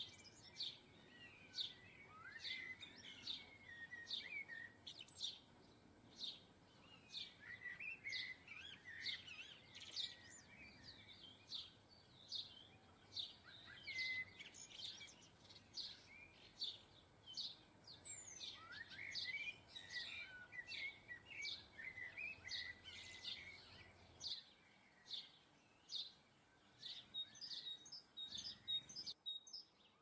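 Small garden songbirds chirping, faint: a steady run of short high chirps with bursts of twittering now and then.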